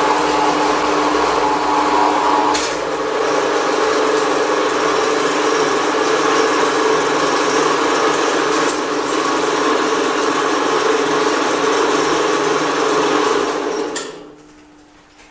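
Milwaukee Pneumatic Co. horizontal metal-cutting band saw running: the motor and blade start abruptly and run steadily with a hum of several fixed tones. Near the end the saw is switched off and winds down over about a second.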